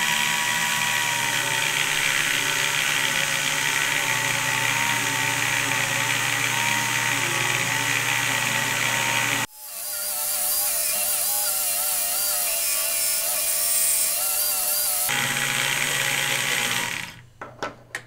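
Small electric motor of a homemade slot car tire truer, running on 6 volts, whining steadily as it spins a slot car's rear axle. The rubber tires grind against sandpaper to be trued, and the motor's pitch wavers as they are pressed down. There is a sudden break about halfway through, and the sound dies away near the end.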